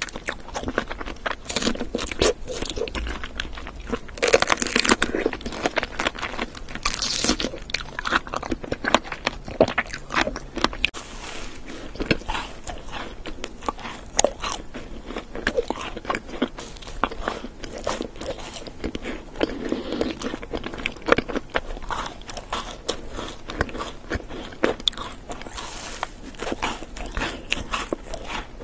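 Close-miked eating sounds: a strawberry and a pink macaron being bitten into and chewed. It is a run of crisp crunching bites and small crackling clicks, and the loudest bites come about four and seven seconds in.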